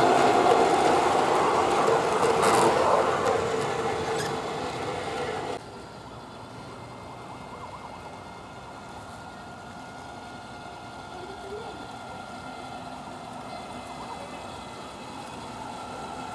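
Märklin gauge 1 V-100 model diesel locomotive and freight wagons running past close by: a steady hum with held tones over the rolling of the wheels on the track, and a few sharp clicks. About five and a half seconds in the sound drops suddenly to a faint, steady running that grows slightly louder near the end.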